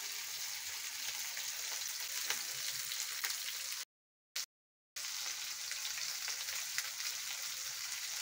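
Pollock frying in oil in a pan: a steady sizzle with scattered faint crackles. The sound cuts out twice briefly about halfway through.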